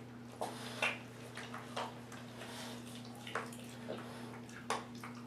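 Bullmastiff puppy chewing a frozen chicken wing: irregular crunching clicks of the bones, about six sharp ones spaced unevenly, over a steady low hum.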